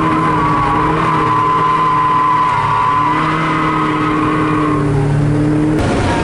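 Mazda Miata drift car's engine heard from inside the cabin, running hard at fairly steady revs with a brief dip about two and a half seconds in. Near the end the sound changes abruptly to a rougher, noisier engine sound.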